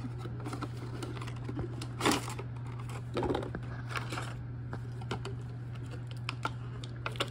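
Small plastic clicks and taps with a few short rustles as toy figures and their plastic and cardboard packaging are handled, over a steady low hum.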